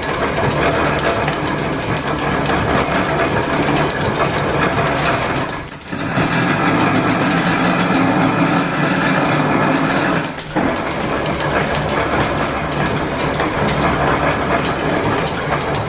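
Belt-driven 1897 metal planer running off the line shaft, a steady clatter of flat belts, pulleys and gearing. About six seconds in and again about ten and a half seconds in, the sound dips briefly as the table reverses, and the first reversal brings a short belt squeal.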